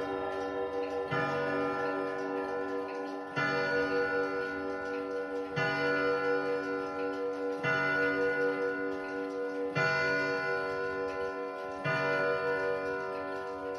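Vedette chiming wall clock striking nine o'clock on its gong rods: slow, evenly spaced strokes about every two seconds, six of them here, each ringing on into the next.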